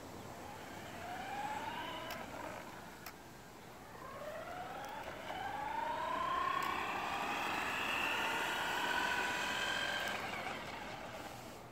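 Radio-controlled car's motor whining as the car drives, rising in pitch as it speeds up about a second in and again around the middle, then holding a high whine before fading near the end.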